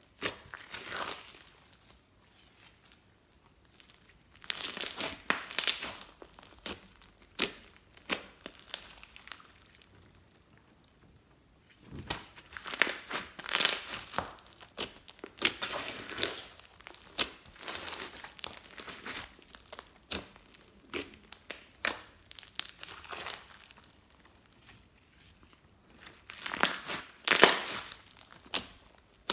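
Hands kneading and stretching sticky clear slime loaded with glitter and small beads: dense runs of sticky clicks and squelches in bouts, with short quieter pauses between.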